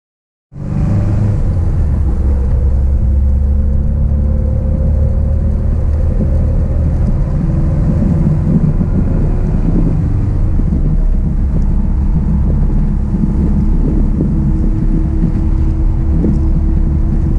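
1966 Triumph Spitfire's four-cylinder engine running steadily on the move, heard from the open cockpit with wind and road noise. It cuts in suddenly about half a second in.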